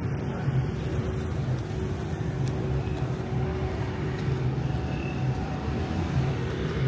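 City street traffic: a steady low engine rumble from cars and motorbikes.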